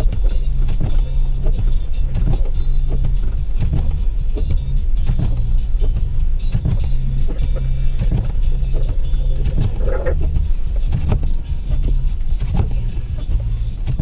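Inside the cab of an EMS command vehicle driving slowly through deep snow: a steady low engine and road rumble, with repeated short knocks and bumps.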